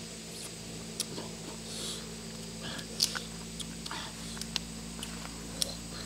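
Close-up eating of cooked crab: a few sharp cracks of crab shell, the loudest about three seconds in, between short sucking and chewing sounds.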